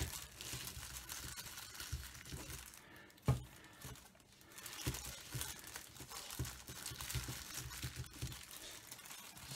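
Thin plastic wrapper of a Milliput epoxy putty stick crinkling as it is folded shut by gloved hands, with a sharp knock a little over three seconds in.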